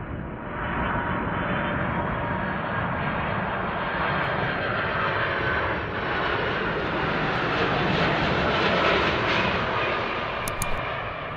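Boeing 747 on final approach, its four jet engines running with a steady rushing roar. The sound gets louder about a second in and brighter as the aircraft comes closer.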